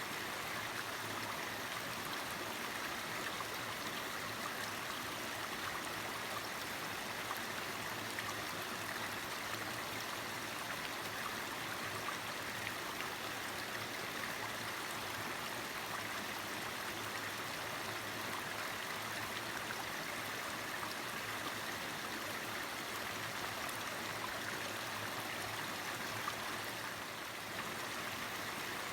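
Mountain stream flowing over rocks, a steady rushing and gurgling of water.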